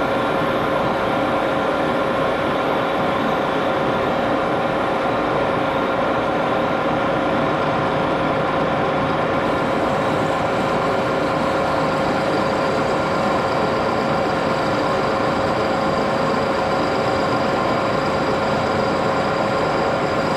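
Axelson engine lathe running steadily while turning a small aluminum part, a constant machine hum with a steady whine. About twelve seconds in, a faint high-pitched tone joins it.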